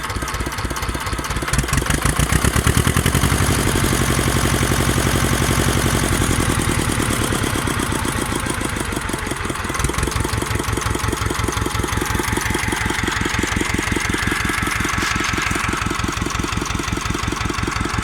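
Ursus C330 tractor's two-cylinder diesel engine, freshly rebuilt and in its first running hours, idling with an even beat. It is revved up a little about a second and a half in, then eases back to idle over the following few seconds.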